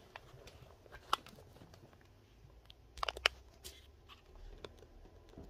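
Handling noise from the camera being picked up and repositioned: a few light clicks and knocks, with a small cluster of taps about three seconds in.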